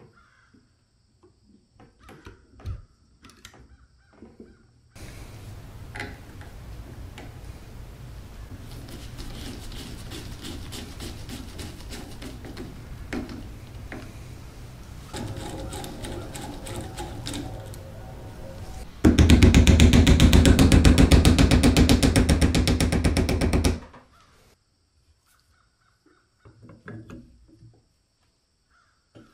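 Small clicks of metal gun parts being handled, then a powered screwdriver running steadily for long stretches while it drives screws into an airgun's receiver. About 19 seconds in, a loud, rapid clatter lasts around five seconds and then stops.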